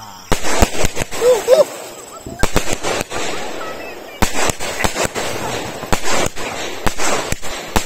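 A 12-shot aerial repeater firework (sky shot) firing. Its shells burst overhead in quick volleys of sharp bangs, with crackling between them.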